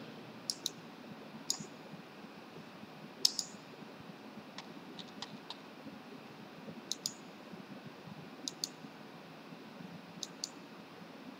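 Computer mouse buttons clicking, sparse single clicks and quick pairs spread through the stretch, with one louder click about three seconds in, over a faint steady hiss.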